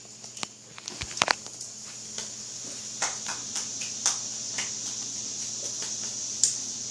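A dog's claws clicking and tapping on a hard floor in scattered light steps, with two sharper clicks about a second in.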